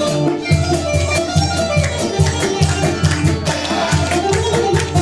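Live instrumental Middle Eastern folk ensemble: qanun, acoustic guitar and violin playing together over a steady beat of hand-drum strokes.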